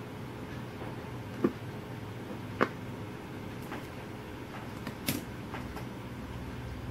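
Light clicks and taps as fingers work the tarantula molt's legs and the pins on a paper-covered pinning block, three of them sharper than the rest, over a steady low hum.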